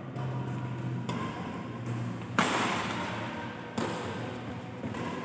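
Badminton rackets hitting a shuttlecock back and forth in a rally: a run of sharp strikes roughly every one to one and a half seconds, the loudest about halfway through, each ringing on briefly in the hall.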